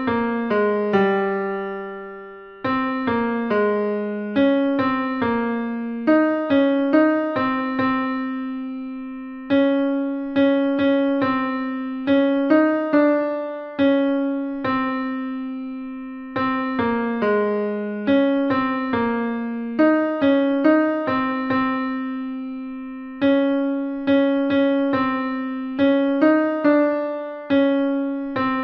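Piano sound playing the tenor line of a four-part hymn, one note at a time at a moderate pace, each note struck and fading away.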